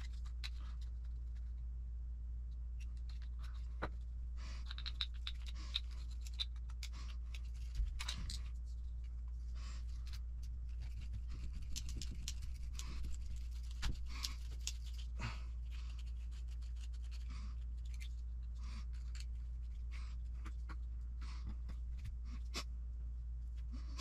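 Scattered light clicks and scratches from small metal screws, tools and model-car parts being handled, over a steady low hum.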